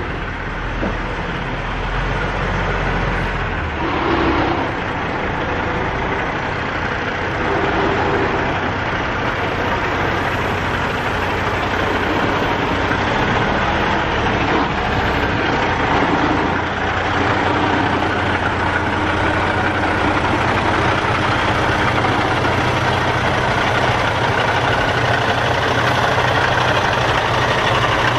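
Kenworth semi truck's diesel engine running steadily at low revs while the tractor-trailer backs into a loading dock.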